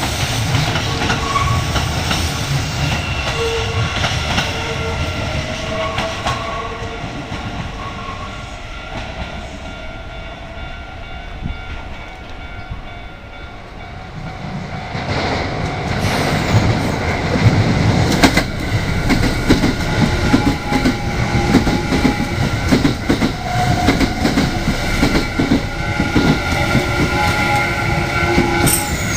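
Electric train running over a level crossing, its wheels clattering over the rails. The sound fades to its quietest about halfway through, then swells again and is loudest in the second half as a train passes close by.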